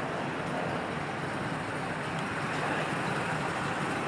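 Steady noise of car engines running and cars rolling past at low speed, an even rumble with no single event standing out.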